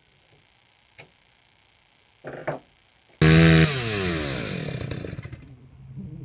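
Stihl 029 Super two-stroke chainsaw being started: a short rasp, then the engine catches suddenly about three seconds in, loud and high-revving at first, and its revs fall away over the next couple of seconds to a steady idle.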